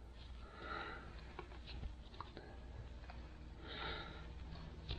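Quiet handling sounds while a differential's ring gear and carrier are turned by hand: two soft breaths and a few faint light clicks.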